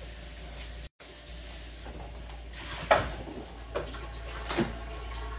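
Food frying under the lid of a stainless steel pan on a gas stove, a steady soft sizzling hiss, with a sharp knock about three seconds in and two lighter knocks after it.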